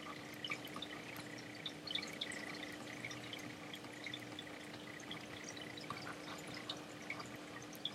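Faint, irregular ticks and light taps of a stylus on a tablet as words are handwritten, over a faint steady hum.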